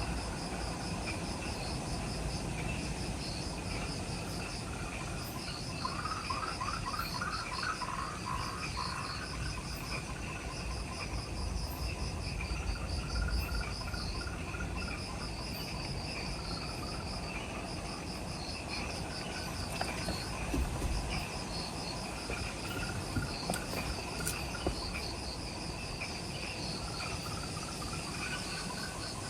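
Chorus of insects calling in a subtropical forest at dusk: repeated trains of rapid high chirps over a steadier lower trill, with a louder, lower pulsed call joining about a quarter of the way in and again near the end. A low rumble runs underneath.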